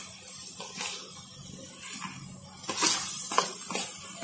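Steel spoon scraping grated paneer off a plate into a frying pan of sautéed onions, over a steady sizzling hiss; a quick run of scrapes and knocks in the second half is the loudest part.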